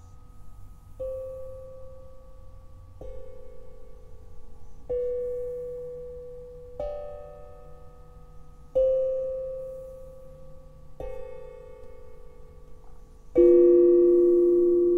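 Tongue drum struck with a mallet, one note about every two seconds, each ringing on and fading slowly; the last stroke, near the end, is the loudest and lowest.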